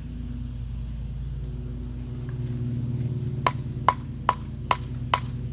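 A steady low hum, then about two thirds of the way in six sharp knocks in quick even succession, a little over two a second, each with a short ringing tone, like hammering on wood.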